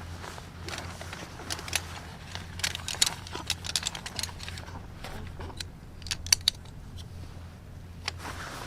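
Irregular light clicks and clinks of small hard objects being handled, over a steady low hum.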